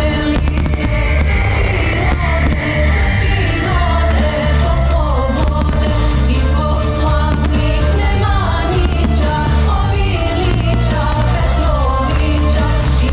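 Loud music with singing over a heavy, steady bass: the soundtrack of a pyromusical fireworks show. Occasional firework bangs sound under the music.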